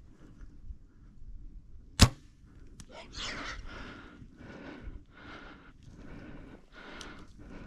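Compound bow shot: a single sharp, loud snap of the string about two seconds in as the arrow is loosed. It is followed by a steady run of rushing sounds, about one and a half a second.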